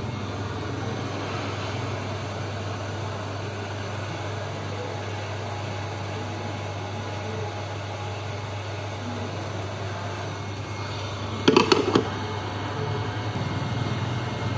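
Steady low mains-like hum with a noisy background hiss. A short cluster of sharp clicks or knocks comes about three-quarters of the way in.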